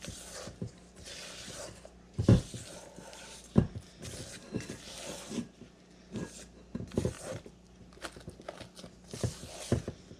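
Rubber spatula folding whipped topping into a cream cheese mixture in a stainless steel bowl: repeated soft swishing and scraping strokes against the metal. There are two dull knocks, about two and three and a half seconds in.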